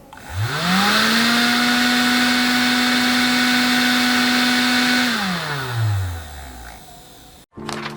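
A small electric fan motor spinning up with a rising whine and a rush of air, running steadily for about four seconds, then switched off and spinning down to a stop.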